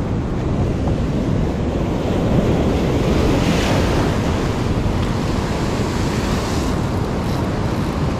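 Heavy sea surf breaking and washing over shoreline rocks, with wind buffeting the microphone as a low rumble; a wave breaks louder about three seconds in.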